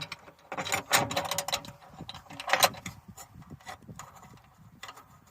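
Metal stove clamp clip and bolt clicking and rattling as the bolt is started on its thread: a flurry of sharp clicks about half a second in and another around the middle, then lighter, sparser ticks.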